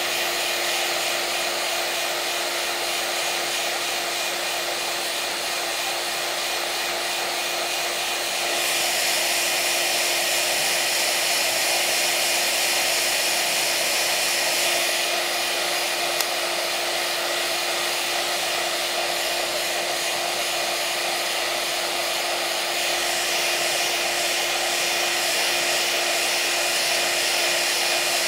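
Steady whir of the cooling fan in an iTeraCare handheld terahertz wand running during a treatment, with a faint steady hum under the airflow hiss. The hiss gets a little louder about eight seconds in.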